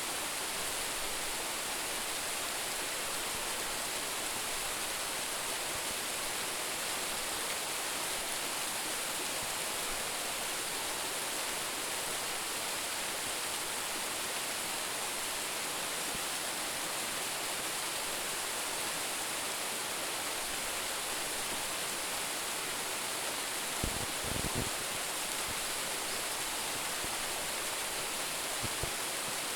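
Waterfall of about 10 m drop, water falling and splashing in a steady, even rush. A couple of brief low thumps sound about three-quarters of the way through and again near the end.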